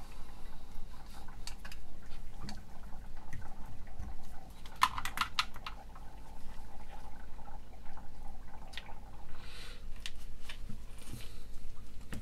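Scattered light clicks and taps of small parts being handled, with a small cluster about five seconds in, over a faint steady electrical hum.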